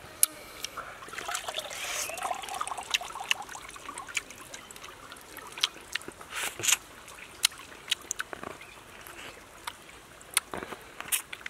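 Close-up wet eating sounds of a person biting and chewing steamed turtle meat off the shell: many sharp smacking clicks scattered throughout, with a stretch of sucking and slurping in the first few seconds.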